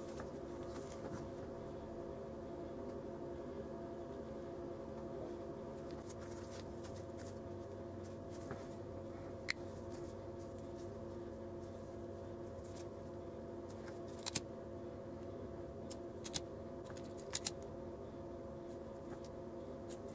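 Small items being handled on a tabletop by gloved hands: a handful of sharp clicks and taps, mostly in the second half, over a steady hum.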